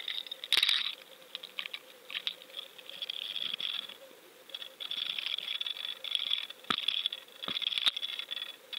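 Underwater crackling and clicking picked up by a GoFish Cam hanging on a bottom-fishing rig, with a few sharp knocks about a second in and again near the end.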